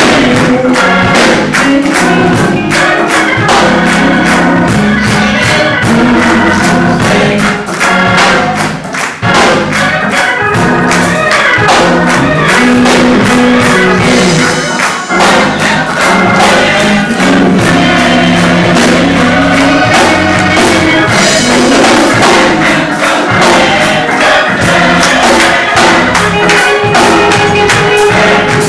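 Church gospel choir singing a hymn with instrumental accompaniment and a steady beat.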